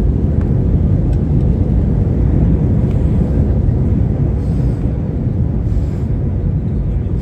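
Steady, loud low rumble inside a jet airliner's cabin as it comes in to land, the noise of the engines and the air rushing past the fuselage.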